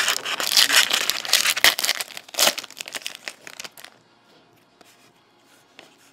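A trading card pack wrapper being torn open and crinkled by hand, a dense run of crackling that dies away after about three to four seconds. Then a few light clicks as the cards are handled.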